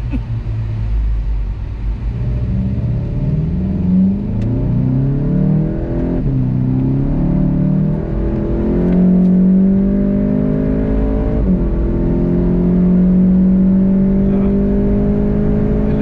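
VW Golf 7 GTI TCR's turbocharged four-cylinder engine under hard acceleration, heard from inside the cabin. The engine note climbs steadily and drops back at each upshift, a few times through the run.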